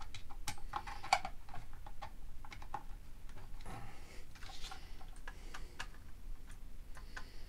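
Scattered small ticks and clicks of a screwdriver working the screw terminals on a PID controller and a solid-state relay as they are tightened, with light rustling as the plastic parts and wires are handled.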